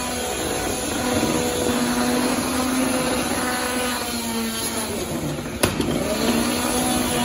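Beetleweight combat robots fighting: a spinning weapon whines at a steady pitch over a constant noisy din, with one sharp impact a little past halfway.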